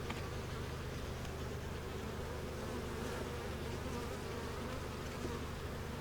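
Honey bees buzzing around an open hive, a steady many-voiced drone.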